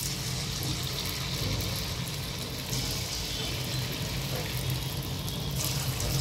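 Small rice-and-potato batter pakode (punugulu) frying in hot oil in a kadhai: a steady bubbling sizzle that gets a little louder near the end.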